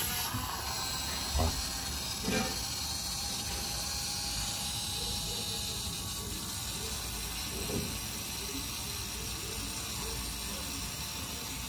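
Mini excavator fuel pump running, drawing diesel through the freshly changed fuel filters with a gurgling of fuel and air ('glu, glu, glu'): the system is priming after running short of diesel. A few small knocks sound in the first few seconds.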